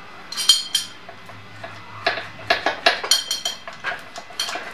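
Metal clinking and knocking as the motorcycle's transmission housing is handled into place against the engine: two ringing clinks about half a second in, then a run of sharp clicks and knocks from about two seconds on.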